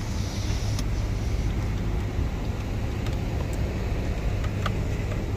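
Steady low rumble of traffic or a vehicle running somewhere else, with a few faint clicks and taps from hands working a stiff starter relay in a car's fuse box.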